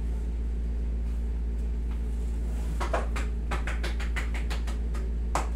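A quick run of light hand taps on a person's upper back during a massage, about five a second, starting about halfway in, over a steady low hum.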